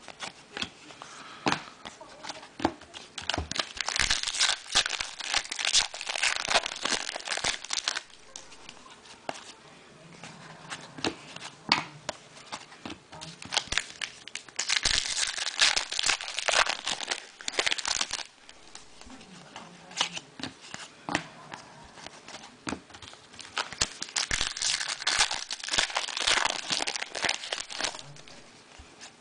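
Football trading-card pack wrappers crinkling as they are torn open and handled, in three long spells, with scattered clicks and taps of cards being handled in between.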